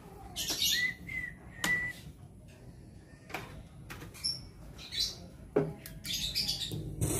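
Scattered light clicks and a few faint bird chirps, then, near the end, a Kingmax active speaker switched on after being resoldered: a steady amplifier hum with hiss comes on and holds.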